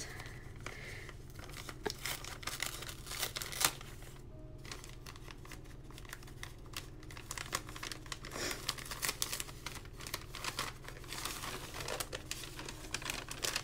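Thin sewing-pattern tissue paper crinkling and rustling in irregular crackles as it is unfolded by hand, with sticky tape being peeled from it, a little quieter about four seconds in.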